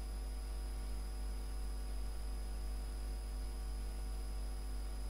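Steady low electrical mains hum from the recording setup, with a faint high-pitched whine above it.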